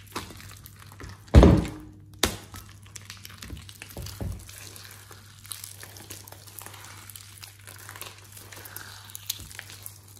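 Thick slime being kneaded, squeezed and stretched by hand in a glass bowl: wet squelches and small crackling pops, with a loud squishy thud about a second and a half in and a few softer knocks after it.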